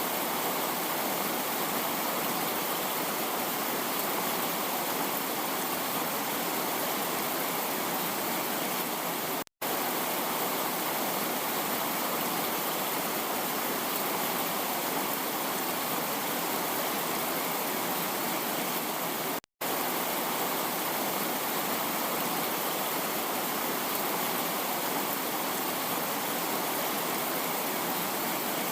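Heavy rain falling as a dense, steady hiss with no distinct drops or thunder. The sound cuts out completely for a split second twice, about ten seconds apart.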